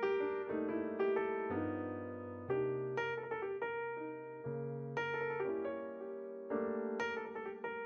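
Background piano music: a gentle melody of struck notes over changing chords, the bass note shifting every second or two.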